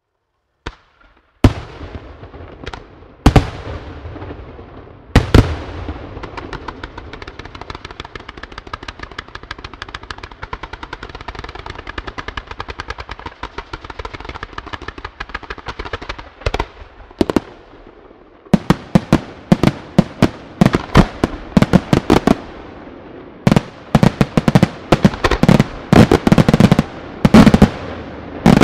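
Fireworks display: three heavy bangs in the first few seconds, then about ten seconds of rapid, close-packed crackling reports like machine-gun fire, then, about two-thirds through, a dense volley of loud aerial bursts in quick succession.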